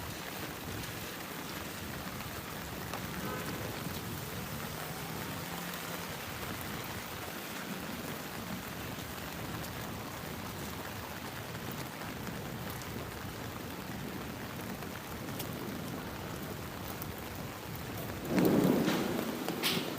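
Steady heavy rain, with a loud low crack of thunder near the end that dies away over a second or so.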